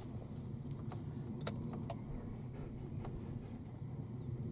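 Steady low outdoor rumble with a few faint, light clicks about one, one and a half, two and three seconds in.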